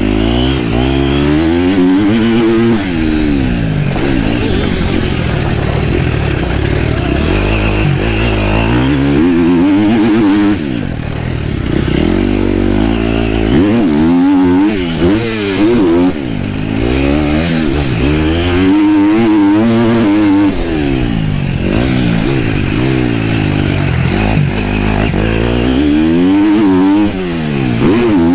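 KTM motocross bike's engine on a track lap, revving up and falling away over and over as the throttle is opened and closed, with brief drops where the throttle is shut.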